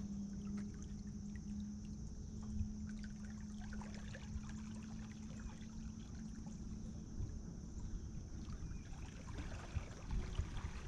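A small outboard motor on a jon boat gives a steady, faint hum that fades away about eight seconds in as the boat moves off, over soft water sounds.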